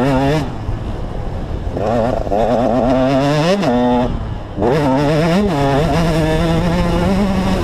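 KTM 125 SX's single-cylinder two-stroke engine revving hard under throttle while riding, its pitch wavering and climbing to a peak about three and a half seconds in, then dropping off. After a brief lull it climbs again and holds a steady high pitch near the end.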